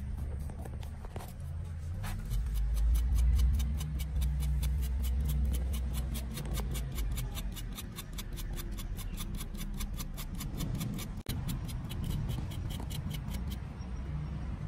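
Kitchen knife scraping an aloe vera leaf in quick, even strokes, several a second, that stop just before the end, over a low rumble.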